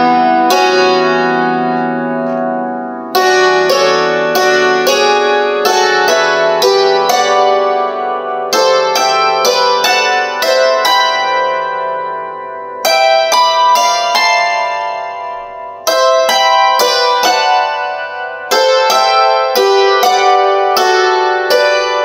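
Secret Sound 12/12 SL hammered dulcimer played with wooden hammers. Struck notes come in quick runs and chords, each ringing on and overlapping the next, with short pauses between phrases where the strings sustain.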